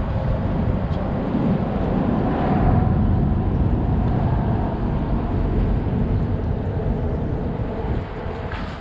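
Boat's outboard motor running steadily underway, with wind noise on the microphone, easing slightly near the end.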